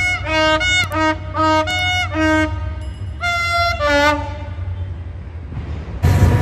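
Music with a bowed-string melody of short notes that slide down at their ends, laid over the steady low rumble of diesel locomotives. About six seconds in, the loud rushing noise of a train in motion cuts in abruptly.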